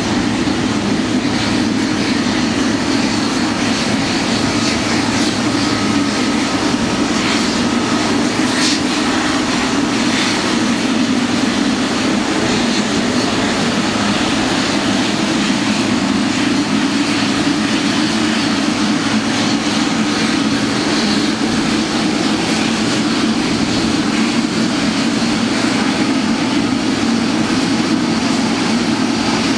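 The twin GE90 turbofans of a Boeing 777F freighter run at taxi idle with a steady, even engine noise that does not rise or fall.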